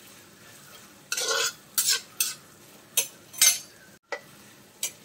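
Metal spatula scraping and stirring sliced onions in a heavy cast-iron kadai: a string of irregular scrapes over a faint steady sizzle of the onions frying in oil.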